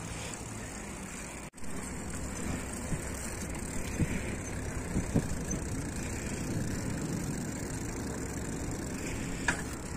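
Steady rumble and hiss of riding a bicycle on asphalt: wind on the microphone and tyre noise from the moving bikes. The sound drops out for a moment about one and a half seconds in.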